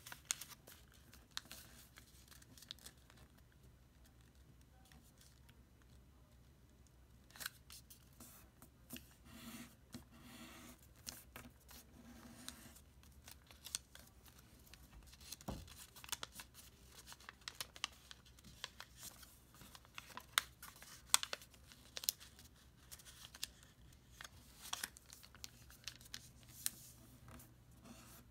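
A sheet of origami paper crinkling and crackling as it is folded and creased by hand, in scattered short rustles and ticks, with a few quieter seconds shortly after the start.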